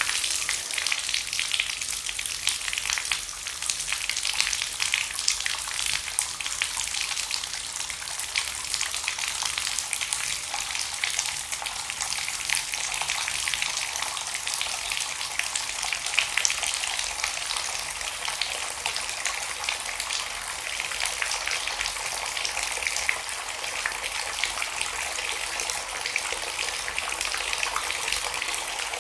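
Water pouring in a continuous stream, a steady splashing hiss with fine crackle and no pauses.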